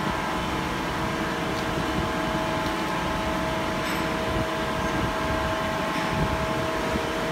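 Steady hum of a CNC turning center standing with its spindle stopped: the machine's pumps and fans running on, with a few steady tones over it.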